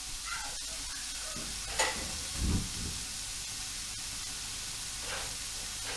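Diced bacon sizzling steadily in a large pot over a low gas flame as its fat renders out. A sharp click comes just under two seconds in, followed by a short dull thud.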